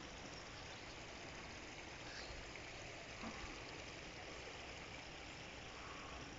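Faint, steady outdoor background noise: an even hiss with a low rumble and no clear single source.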